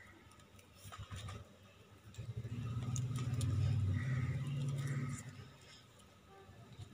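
A low engine hum swells up about two seconds in, shifts up in pitch midway and fades out about three seconds later, as from a passing vehicle. Faint clicks and rustles of the plastic weaving strip being handled sit under it.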